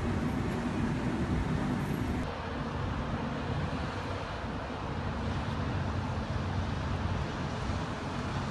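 Steady low engine rumble with waterfront background noise, changing abruptly about two seconds in when a stronger low hum drops away.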